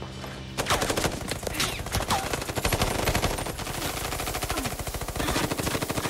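Rapid automatic gunfire, a long unbroken volley of shots starting about half a second in.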